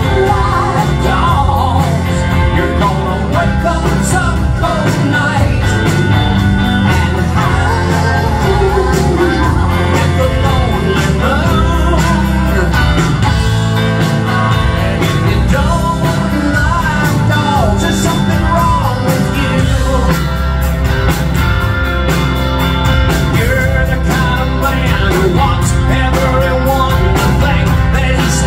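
Live rock band playing: electric guitars, electric bass and a drum kit, loud and steady. The cymbal hits get busier about two-thirds of the way through.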